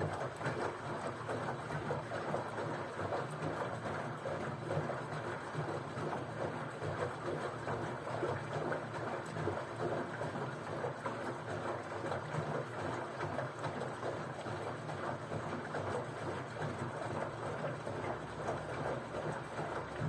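LG front-loading washing machine tumbling its drum on a hot-water cleaning wash: water sloshing and splashing inside the drum over a steady low motor hum.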